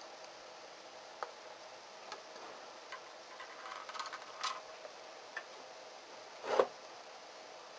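Light clicks and taps of small metal and plastic parts being handled on a plastic lamp head, with a louder knock near the end, over a faint steady hiss.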